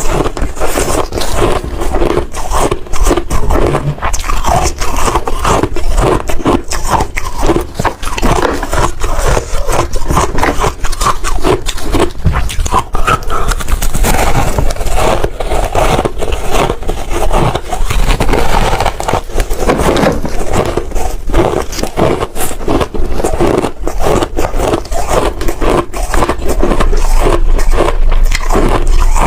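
Hard shaved ice being bitten and chewed close to the microphone: a dense, continuous run of loud crunches and crackles.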